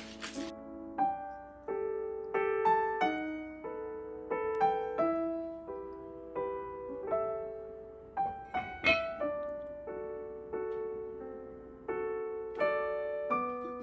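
Background piano music: a gentle melody of struck notes with chords, each note ringing and fading.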